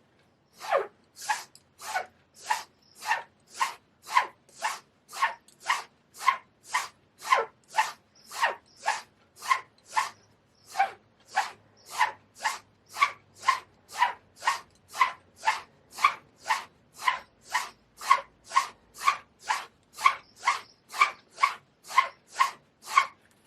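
Straight razor drawn back and forth on a Japanese natural finishing whetstone in steady honing strokes: a rhythmic, even scrape, about two strokes a second, around forty in all.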